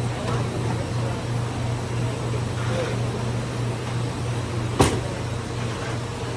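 Steady low machinery hum of a bottling line, with a single sharp knock a little under five seconds in.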